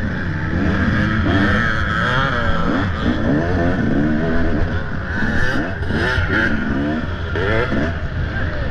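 Off-road dirt bike engine revving, its pitch rising and falling over and over as the throttle is worked and gears change.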